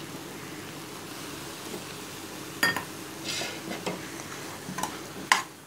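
Chicken masala sizzling steadily in a pressure cooker, then a handful of sharp knocks and clinks against the pot with some scraping as potato chunks go in and are stirred. The loudest knock comes near the end.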